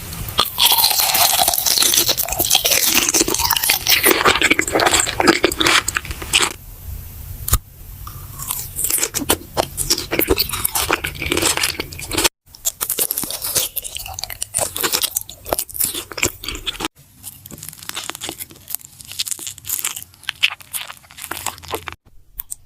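Crunching, crinkling eating sounds in a pretend mukbang of paper emoji: dense and loud for the first several seconds, then sparser crunches broken by a few abrupt cuts.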